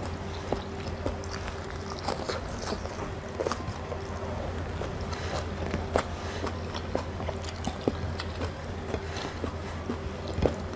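A person chewing food, with frequent short mouth clicks and smacks, over a steady low hum.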